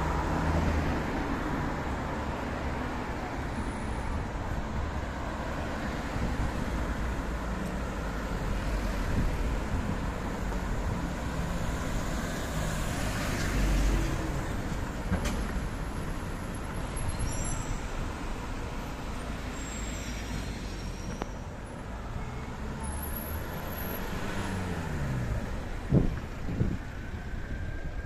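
City street traffic: a steady rumble of cars driving past, with one vehicle going by with a falling pitch near the end and a few sharp knocks just after.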